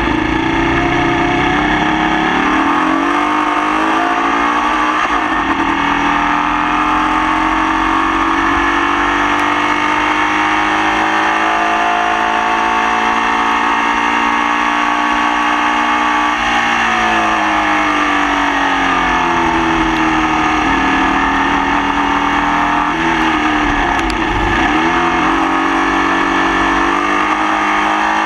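Formula Vee race car's air-cooled Volkswagen flat-four engine heard onboard at race pace. It pulls up through the revs on a long straight, then drops back through gear changes, and is running with a misfire.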